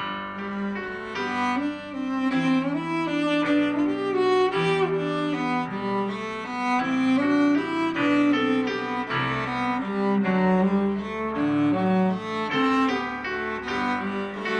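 Cello and piano duet playing, the cello's bowed melody over piano chords; the music begins abruptly right at the start.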